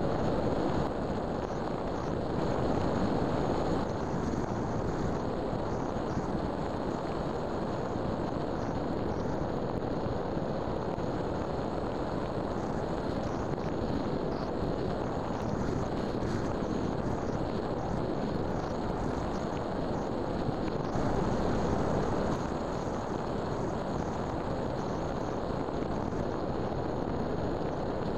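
RC flying wing's motor and propeller running steadily in flight, heard from its onboard camera and mixed with wind rush over the airframe, with a faint steady high whine. The noise swells slightly a few seconds in and again about two-thirds of the way through.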